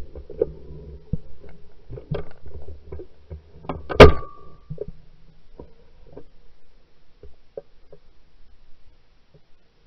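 A 28-gauge shotgun fires once, a loud sharp report about four seconds in with a brief ring after it. Gun handling knocks and rustles come before and after it.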